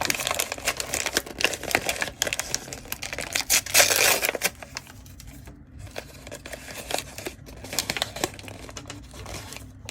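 Doll packaging being crinkled and torn open by hand: dense crackling and rustling for the first few seconds, a louder tearing rush about four seconds in, then fainter scattered crinkles and clicks.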